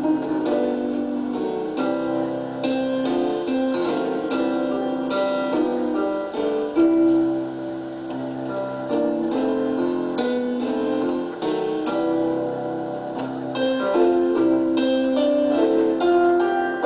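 Electronic keyboard played with a piano sound, an instrumental gospel hymn of chords and melody notes.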